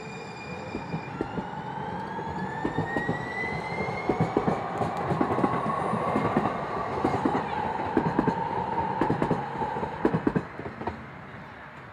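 A train passing close by. Its wheels click repeatedly over the track, and a whine rises steadily in pitch as it goes. The sound swells to its loudest in the middle and fades near the end.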